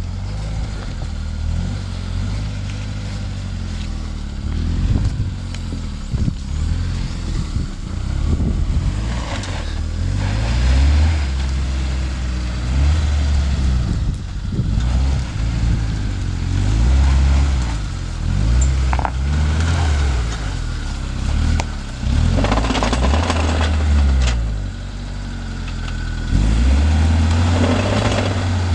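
Suzuki Vitara (Escudo) off-road SUV engine revving up and dropping back again and again, as it works the vehicle through mud.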